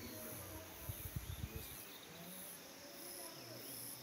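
Faint insects chirping in a high, pulsing trill, about two pulses a second. A few low thumps come about a second in.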